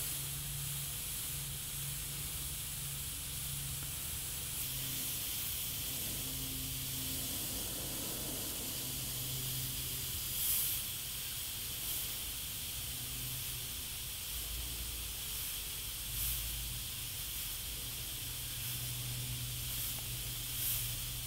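GSI Creos Mr.Hobby PS.770 gravity-feed double-action airbrush hissing steadily as it sprays fine paint lines, with a few brief swells in the hiss.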